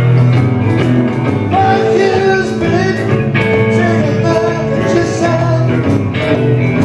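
Live band playing: acoustic and electric guitars and keyboard together, with a man singing into the microphone.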